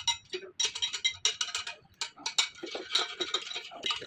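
Rapid, irregular metallic clinking and clicking, like small metal tools and parts being handled and knocked together.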